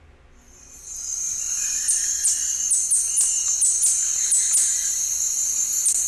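Field recording of a purple-chested hummingbird calling: a series of high, thin, sharply falling notes, about two a second and not evenly spaced, over a steady high insect drone. It fades in about a second in.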